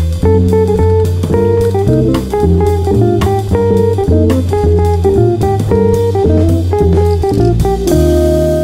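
Background music: an instrumental with plucked guitar-like notes over bass and a steady drum beat, changing near the end to long held keyboard chords.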